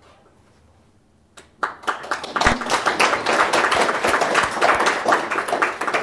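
Audience applauding, beginning about a second and a half in after a brief quiet.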